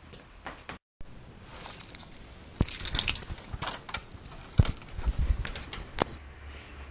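A bunch of keys jangling, with a run of sharp knocks and clicks; the loudest knocks come near the middle and toward the end. The sound cuts out for a moment about a second in.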